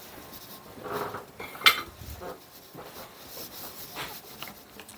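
Whisk clinking and scraping in a glass mixing bowl, stirring cornstarch into egg yolks, with one sharp clink about a second and a half in and light ticking strokes after it.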